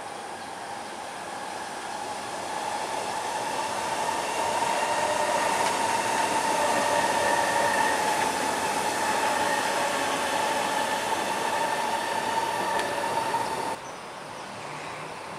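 Kawasaki-built SMRT C151 electric metro train running past on the track, growing louder and then easing off, with a steady high whine over the running noise. The sound drops abruptly near the end to a quieter background.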